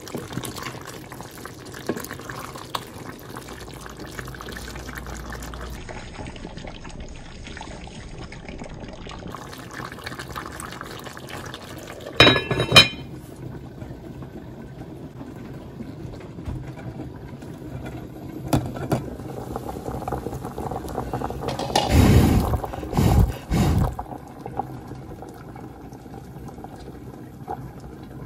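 Kitchen cooking sounds: a rendang stew bubbling and being stirred with a wooden spatula in an enamelled cast-iron pot, then a sharp ringing clink about halfway through as the lid goes on. A loud rough rumble of handling follows, and water is boiling in a pot of potatoes toward the end.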